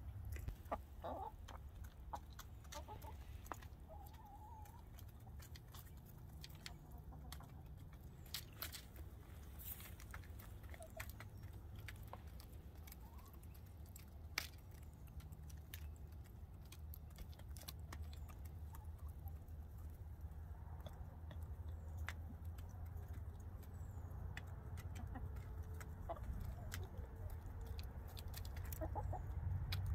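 Hens clucking softly now and then, with scattered sharp clicks over a low steady rumble.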